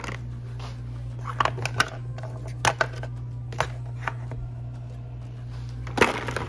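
Hard plastic cup lids and tumbler parts clacking as they are handled and tossed into a kitchen trash bin: a handful of short, sharp clacks spread over a few seconds, the loudest near the end, over a steady low hum.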